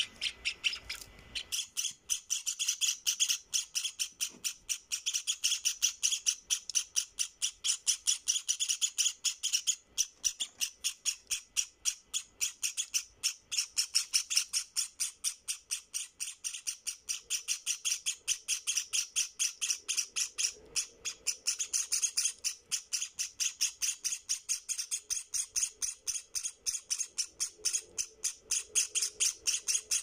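Two-week-old white Java sparrow chicks giving rapid, high-pitched begging cheeps, several a second without a break, as they gape for hand-feeding.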